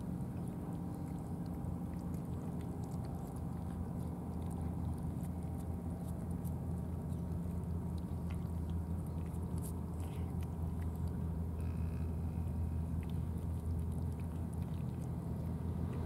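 Steady low hum of an idling engine, with faint scattered clicks of cats chewing wet cat food.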